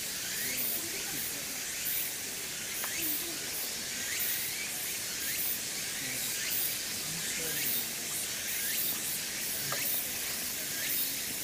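Cicadas shrilling in a steady high chorus that pulses softly in the top register.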